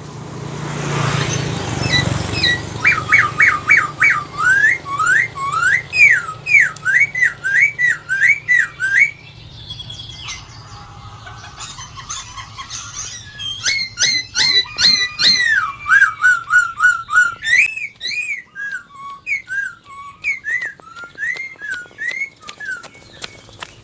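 A poksai laughingthrush singing loudly: long runs of quick, repeated whistled notes, each rising or sweeping in pitch, broken by a pause of a few seconds in the middle. A brief rushing noise comes before the song starts.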